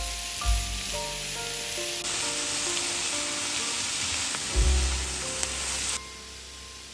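Shredded cabbage, carrot and egg sizzling in a hot oiled frying pan while a wooden spatula stirs and tosses it, with two dull thumps of the spatula and food against the pan. The sizzle drops away sharply near the end.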